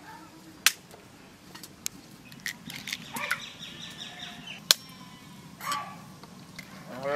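Hen's eggs being cracked open one after another, sharp taps of shell, two of them loud and several lighter. Right at the end a cow begins to moo.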